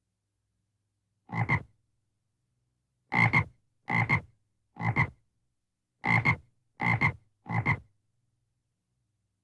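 A frog croaking seven times: one croak, then two runs of three about a second apart, each croak short and double-pulsed.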